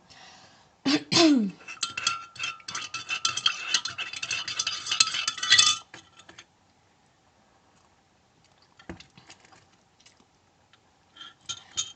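A teaspoon stirring sugar into a cup of water, clinking rapidly against the cup, which rings, for about four seconds before stopping. A short vocal sound with falling pitch comes about a second in.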